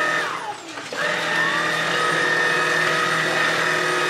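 Cordless stick vacuum cleaner motor running with a steady high whine. Its pitch falls away about half a second in, then the motor starts up again just before a second in and runs steadily.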